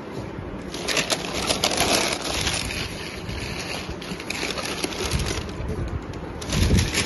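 Newspaper wrapping rustling and crinkling as a bowl is unwrapped and handled, with a low bump near the end.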